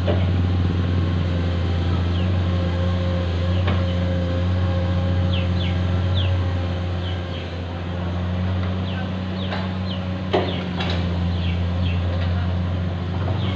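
Diesel engine of heavy construction machinery running steadily with a low, even hum. Short high chirps are scattered through it, and there is a single sharp knock about ten seconds in.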